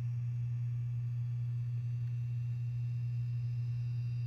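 Steady low electrical hum, a single unchanging tone.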